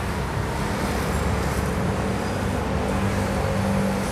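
Steady low hum of street traffic and running engines, even throughout with no single event standing out.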